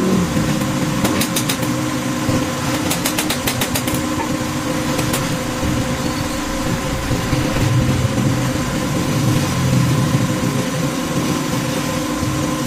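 A steady engine-like running noise with a constant tone through it, and a few quick clusters of light metallic clicks in the first five seconds.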